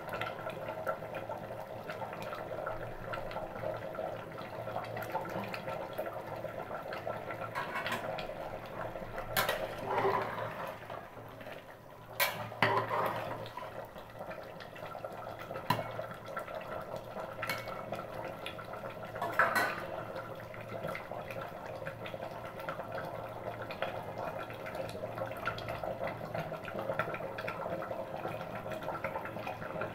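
Chicken and bottle gourd curry simmering and bubbling in an open aluminium pressure cooker, with a metal ladle stirring it and knocking against the pot several times through the middle.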